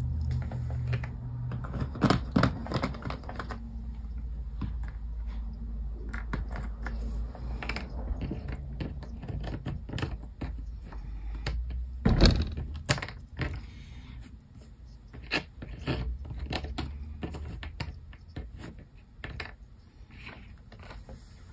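White Mountain cardboard jigsaw puzzle pieces clicking and tapping on a tabletop as they are picked up, sorted and tried, in irregular clusters of small clicks, with a louder knock about twelve seconds in.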